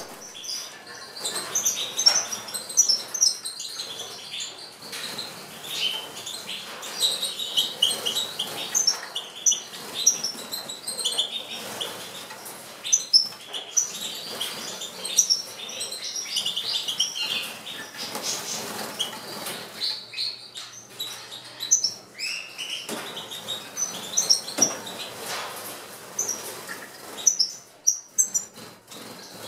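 European goldfinches twittering and chirping, several birds at once in quick, overlapping bursts, with wing flutters as they fly between perches.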